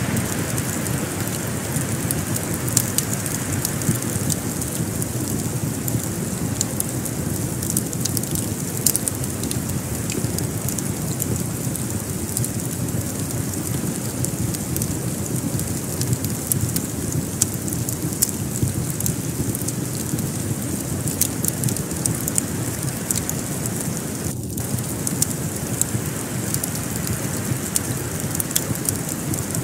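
Crackling wood fire in a fireplace: a steady low rumble with many small sharp pops and crackles throughout.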